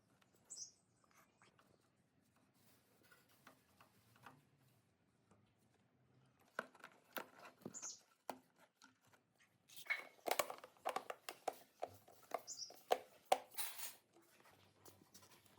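Irregular light clicks and taps of hand work with tools and metal parts, sparse at first and busier from about halfway on, with a few brief high chirps.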